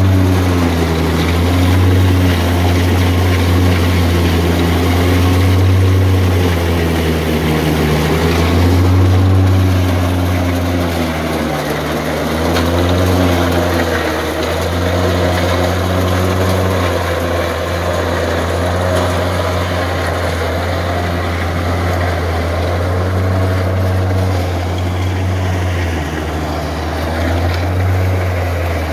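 Tractor engine driving a belt-powered forage chopper that is chopping dry corn stalks. The engine runs steadily, and its pitch sags and recovers several times as bundles are fed in and load it down.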